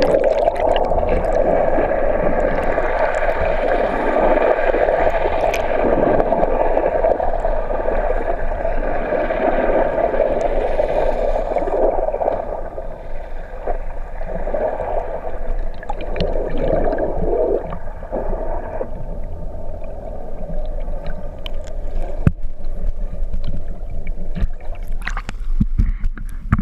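Muffled rushing and gurgling of water around a camera held underwater, with a steady hum running through it; the rush eases about halfway through.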